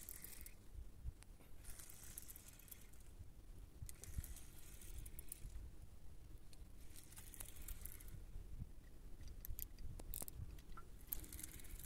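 Spinning reel being cranked in short bursts every two to three seconds as a hooked fish is brought up, with a few light clicks and a low steady rumble underneath.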